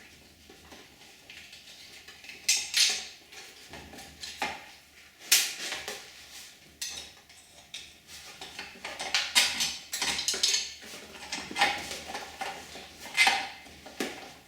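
Irregular metallic clinks and scrapes of hand tools and screws on metal as long screws are taken out of a quad bike's magneto cover.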